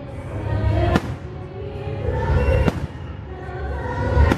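Aerial fireworks shells bursting: three sharp bangs, about a second in, near the middle and, loudest, just before the end, with the show's music playing throughout.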